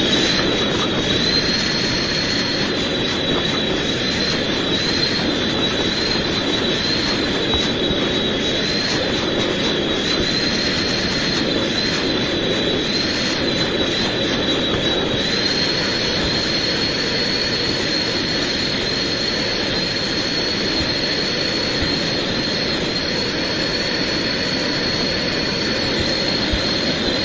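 Professional rug-cleaning machine running steadily, a constant noise with a high whine that wavers slightly in pitch.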